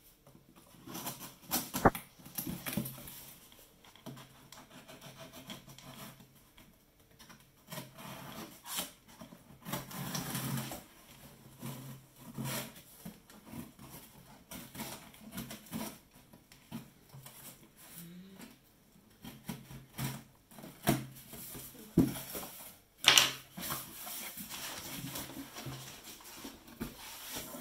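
Cardboard shipping box being opened by hand: a small blade scraping and slitting the packing tape, then the flaps pulled open and the box handled, in irregular rustles and scrapes with a few sharp knocks, the loudest near the end.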